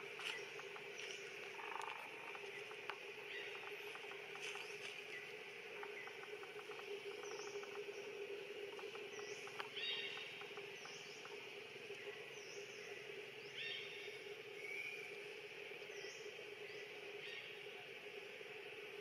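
Faint forest ambience: a steady low hum under a haze of insect-like buzzing, with scattered short high chirps and clicks.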